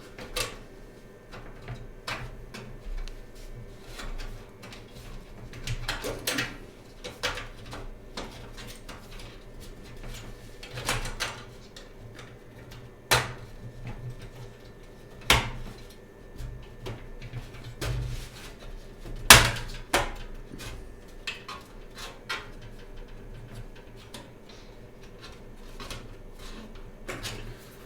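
Irregular light clicks and knocks as a motherboard I/O back plate is fitted into the rear of a PC case, with the loudest knock about two-thirds of the way through.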